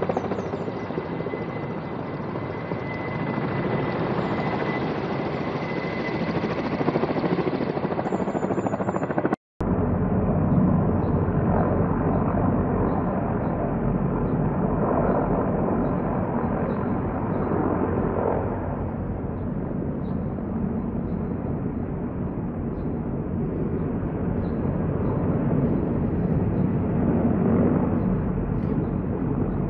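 Steady drone of a helicopter heard from a distance, mixed with outdoor city noise. The sound drops out briefly about nine seconds in and comes back deeper, with slow swells.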